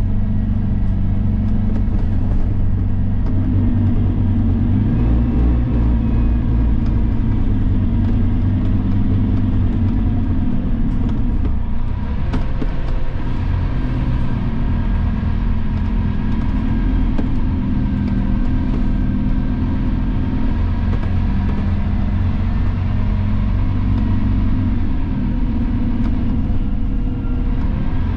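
Steady low drone of the Scania Fencer F1 bus's engine heard inside the passenger saloon, its note shifting in pitch a few times.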